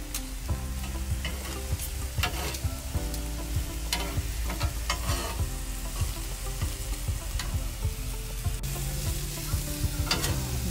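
Sliced green peppers and mushrooms sizzling on a griddle across the stove burners, with a spatula scraping and clicking against the griddle every so often as they are turned.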